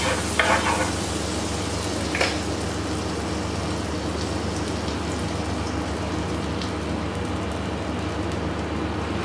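Butter sizzling and bubbling on a hot electric grill plate, a steady hiss. Metal tongs scrape across the plate in the first second, with one more click about two seconds in.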